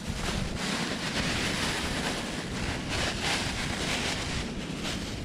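Wind blowing: a steady rushing noise that swells and eases a little.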